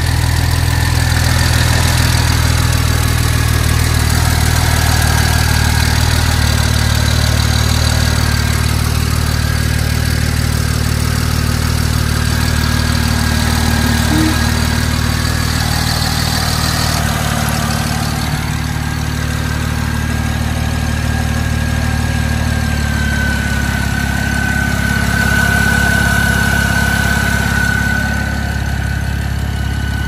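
BMW 335i's N54 twin-turbo inline-six idling steadily. A thin high whine grows louder in the last third. The drive belt sits too close to the alternator and is rubbing against it, shredding and starting to smoke.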